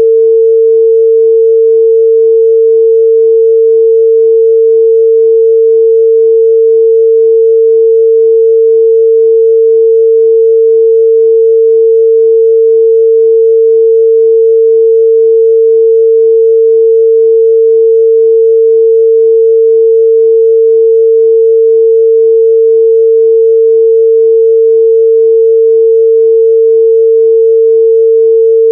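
A pure 451 Hz sine-wave test tone, one steady unchanging pitch held at a constant loud level, used to check the midrange response of speakers and headphones.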